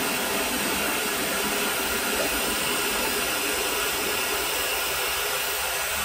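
Pink noise test signal playing steadily through a karaoke sound system's loudspeakers, used to measure the system's response and delay with a measurement microphone and analyser app.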